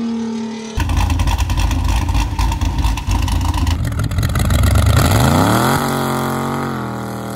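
Dodge rat-rod pickup pulling away under hard acceleration: a loud, rough engine sound whose pitch climbs, drops sharply about six seconds in as it shifts gear, then holds and slowly fades as the truck drives off. The first second holds the tail end of another car's engine passing by.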